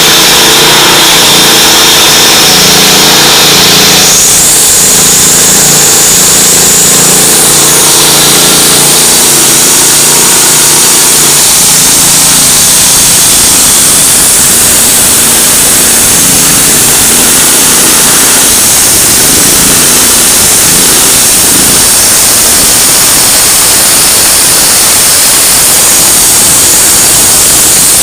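Road-construction machinery at work: an engine running under a loud, constant mechanical din, with a change in its high-pitched noise about four seconds in.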